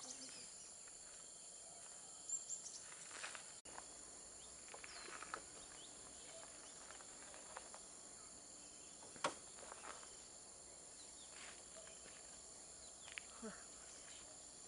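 Faint outdoor ambience: a steady, high-pitched insect drone with scattered faint chirps and a sharp click about nine seconds in.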